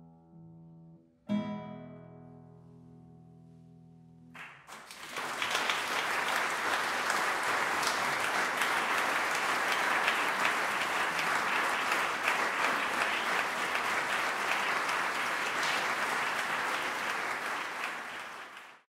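The closing chord of a piece on a nylon-string classical guitar, struck about a second in and left to ring out and die away. Then audience applause breaks out and goes on steadily, louder than the guitar, until it cuts off just before the end.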